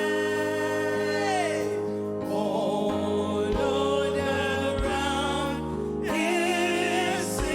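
Live church worship music: sustained keyboard chords under wavering singing voices, with a few low drum beats.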